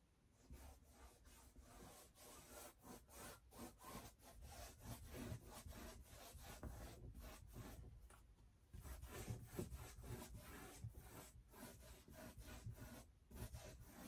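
Faint scrubbing of paint being worked onto a large stretched canvas in quick, repeated strokes, with a short pause about eight seconds in.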